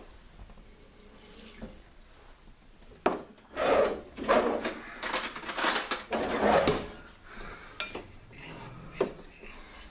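Metal cutlery clattering loudly for several seconds as a kitchen drawer is rummaged through, beginning with a sharp knock about three seconds in. Near the end come lighter clinks and scrapes of a utensil against a ceramic bowl.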